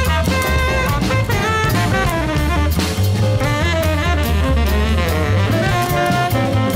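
Jazz background music with a saxophone melody over a drum kit.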